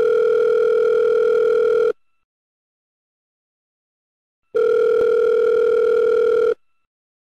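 Telephone ringback tone, the ringing heard by a caller while the other end rings: two steady rings of about two seconds each, with a silent gap of about two and a half seconds between them.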